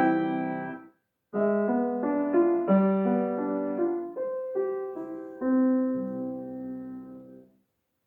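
Solo piano playing the closing phrases of a short piece: a chord is held, cut off by a brief silence about a second in, then a few more phrases follow. The piece ends on a final chord that dies away to silence.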